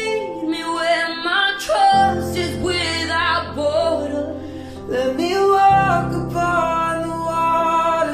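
Background song: a singing voice with guitar accompaniment.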